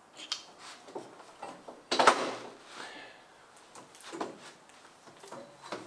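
Workshop knocks and clanks of hard objects being handled and set down, with the loudest clank about two seconds in, ringing briefly.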